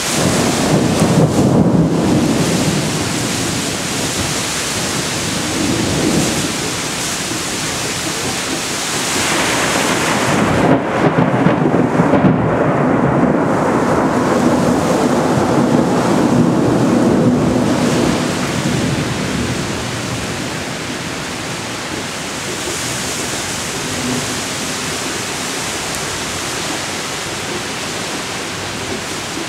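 Thunder rumbling over steady heavy rain during a strong thunderstorm. The rumble swells near the start and again midway, then eases to the even hiss of rain.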